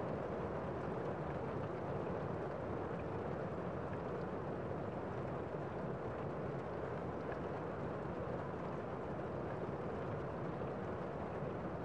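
Steady, even city street noise: a continuous din with no distinct events standing out.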